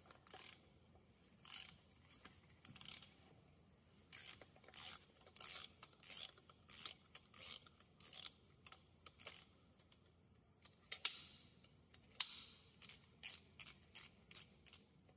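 Socket ratchet clicking in short repeated strokes, about two a second, as it loosens the drain plug on a Case 310G dozer's final drive housing. A couple of sharper metal clicks come a little after the middle.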